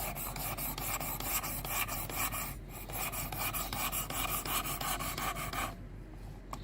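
600-grit diamond stone of a guided knife sharpener rasping back and forth along a D2 steel knife edge in steady strokes, with brief pauses about two and a half seconds in and near the end.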